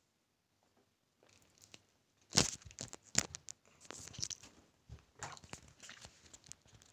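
Handling noise close to the microphone: after a couple of seconds of near silence, a string of sharp clicks and soft rustling, the loudest click about two and a half seconds in.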